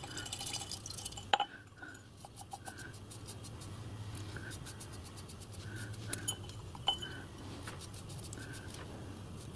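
Faint clinking of a small brush and brass mesh strips against a glass jar of brake cleaner, with light brushing and scattered small ticks; a couple of sharper clinks stand out, one about a second and a half in and one near seven seconds.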